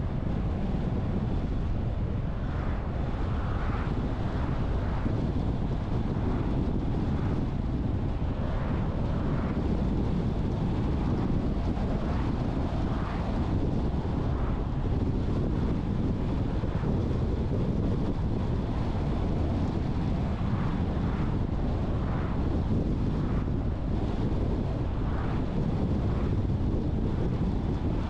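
A car driving along at a steady pace: an even rumble of road and wind noise, heaviest in the low range, with no change in pitch or level.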